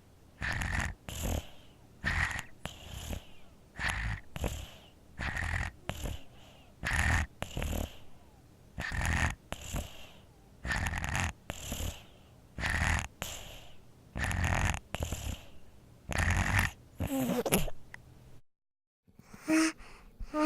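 Infant snoring in sleep with a nose congested from a cold: snuffly breaths in and out, roughly one breath every one and a half to two seconds. Near the end the sound cuts out for a moment, then a few short voice-like sounds follow.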